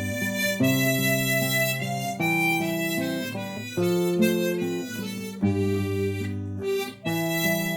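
Instrumental interlude of a Korean ballad with no singing: a sustained melody over chords that change about every second.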